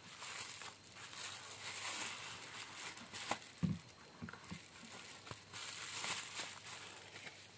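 Faint rustling and crinkling from objects being handled on a work surface, with scattered small clicks and taps, the sharpest a little past three seconds in.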